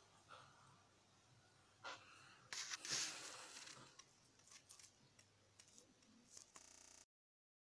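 Faint clicks and rustling of a phone being handled, with a louder crackly rustle about two and a half seconds in; the sound cuts off shortly before the end.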